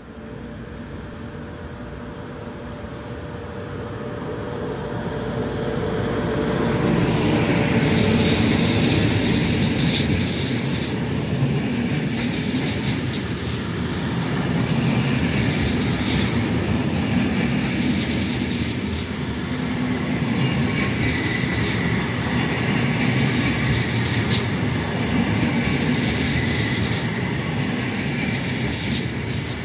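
FS E652 electric locomotive's freight train approaching, growing louder over the first several seconds. Then flat wagons loaded with concrete sleepers roll past close by: a steady heavy rumble of steel wheels on rail, with clickety-clack over the joints and a high wheel squeal in the second half.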